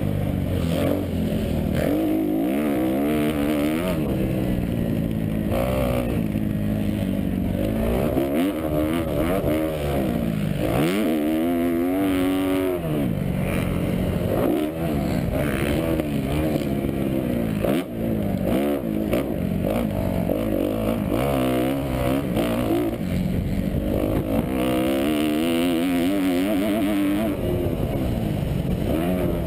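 2012 Kawasaki KX250F's single-cylinder four-stroke engine ridden hard on a motocross track, revving up and dropping off again and again as its pitch climbs and falls.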